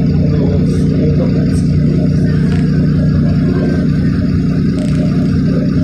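Steady drone of a NefAZ 5299 city bus's Cummins ISBe diesel engine and drivetrain, heard from inside the passenger cabin as the bus moves slowly in traffic.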